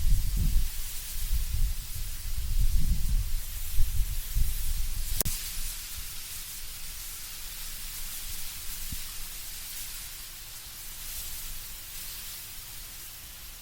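Wind gusting through trees, with dry autumn leaves rustling as a steady hiss. The gusts come stronger in the first half and ease off after about six seconds. There is a single sharp click about five seconds in.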